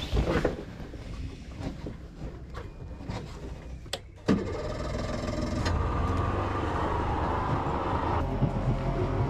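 Small two-stroke outboard motor starting about four seconds in, after some knocking and handling sounds, then running steadily and picking up a little a couple of times.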